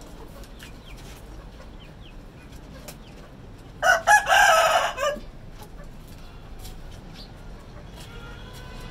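A chicken gives one loud, short crow of about a second, starting about four seconds in, with a brief first note followed by a longer drawn-out one.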